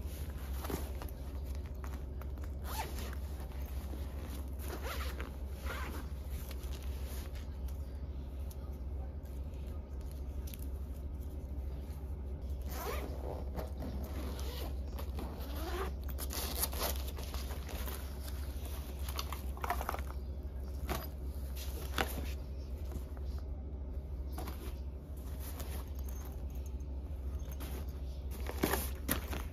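Zippers on mesh packing cubes and a soft suitcase being drawn open and shut, with fabric rustling as clothes are handled, in short irregular strokes over a low steady hum.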